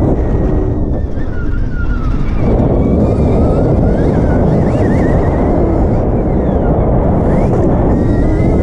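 Stark Varg electric motocross bike being ridden hard on a dirt track. Heavy wind buffeting on the microphone is the loudest sound, with the electric motor's thin whine over it, rising and falling in pitch as the throttle is worked.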